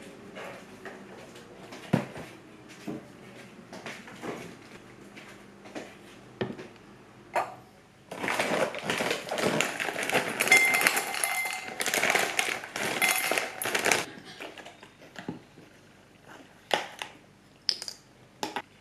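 Dry cereal poured from a plastic bag into an enamel bowl: a dense spell of many small hits on the bowl lasting about six seconds. Before it come scattered light taps and clicks of things being handled, and a few sharp clicks follow near the end.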